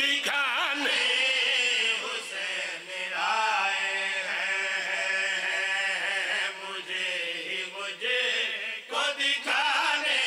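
Men chanting a devotional verse in turn into hand microphones, amplified over a PA, the voices gliding and holding long, wavering notes.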